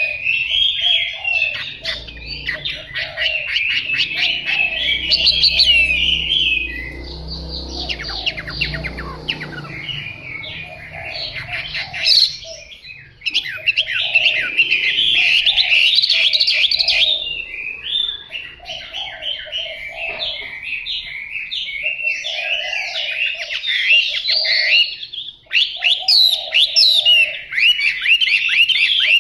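Chinese hwamei practising its song: a long, fast run of varied short whistled notes, breaking off briefly about seven, thirteen and twenty-five seconds in.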